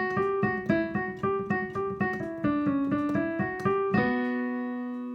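Piano or keyboard playing a quick run of single notes, then about four seconds in a held chord that rings on and slowly fades.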